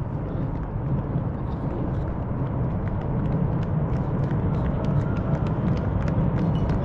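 Footsteps of many marathon runners slapping on the road, getting denser and a little louder as the pack comes past, over a steady low rumble.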